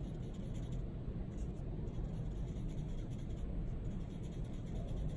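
A paintbrush's bristles rubbing and scraping against a palette tray as red and green paint are stirred together.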